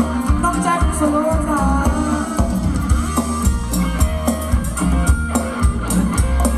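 Live band playing Thai ramwong dance music: a drum kit keeping a steady beat under guitar and a melodic lead line.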